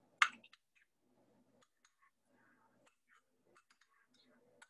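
A spoon knocking once, sharply, about a quarter second in, then faint scattered clicks as the spoon works a firm, hard avocado.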